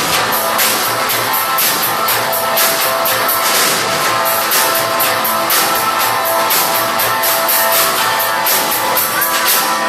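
Rock music with a driving drum beat, guitar and some singing.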